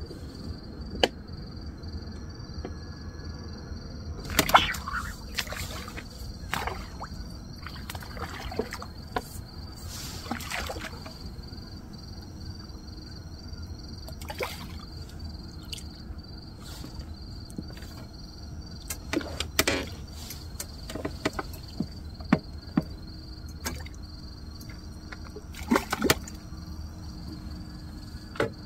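Night-time waterside ambience: a steady, evenly pulsing insect chirring, with scattered rustles and clicks of fishing gear being handled close to the microphone, the loudest about four seconds in.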